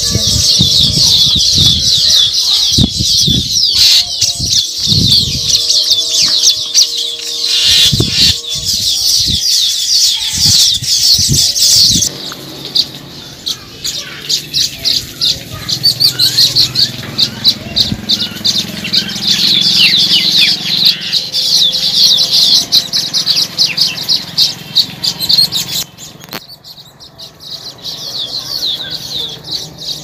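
A colony of baya weavers chattering: a dense, continuous chorus of fast, overlapping high chirps. Low thumps sound under it for the first twelve seconds, and the chorus drops in level about twelve seconds in and thins out near the end.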